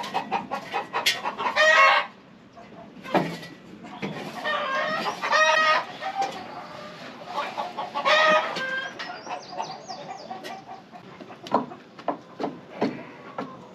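Chickens calling: three loud, drawn-out calls, the middle one the longest. Then a few sharp knocks near the end.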